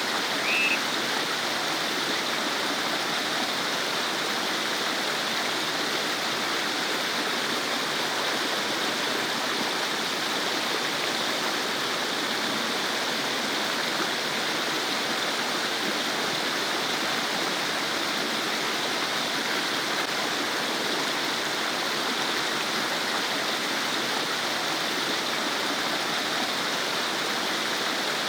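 Small stream babbling over stones, a steady, even rush of running water.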